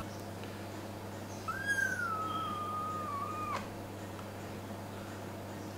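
A kitten about a month old gives one long meow of about two seconds. It starts high, rises briefly, then slowly falls in pitch.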